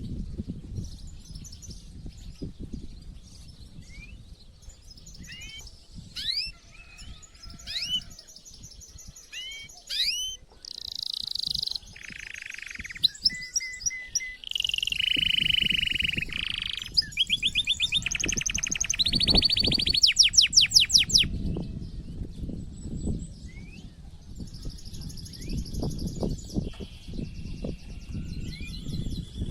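A male domestic canary singing an excited breeding-season song. Rising chirps give way to long held whistled notes, then rapid trills that are the loudest part, and the song turns quieter toward the end. A low rumble runs underneath.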